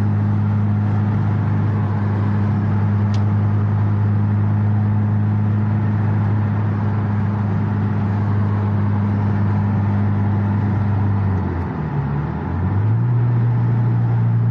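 Subaru's turbocharged flat-four engine, fitted with a catless downpipe, giving a steady low drone while driving. About twelve seconds in it dips briefly, then settles again at a slightly higher pitch.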